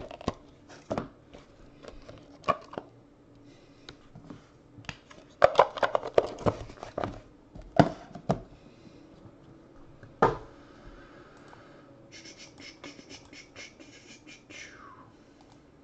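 Hands handling a small cardboard card box and a stack of trading cards: scraping and rustling cardboard with light clicks and knocks as they are set down on a metal briefcase, and a sharper knock about ten seconds in.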